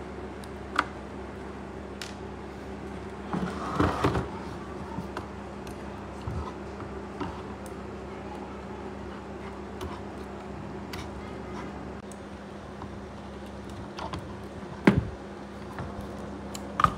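Handling noise from a subwoofer amplifier plate and its circuit boards being taken apart on a wooden bench: scattered clicks, knocks and rattles, the sharpest about a second in and again near the end, over a steady low hum.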